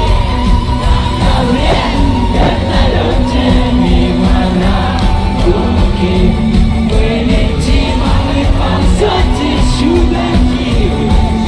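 Rock band playing live: a male singer's voice over electric guitars, keyboards and drums, with crowd noise mixed in.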